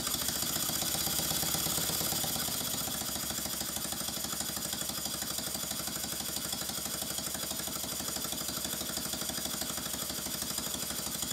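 Stuart Models S50 single-cylinder model steam engine running fast on compressed air: a rapid, even exhaust beat with a steady hiss of air. It picks up speed over the first second or two, then holds a steady fast run.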